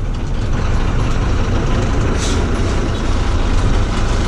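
Ashok Leyland bus's H-series diesel engine running steadily under way, heard from inside the cab with road noise, and a brief hiss about two seconds in.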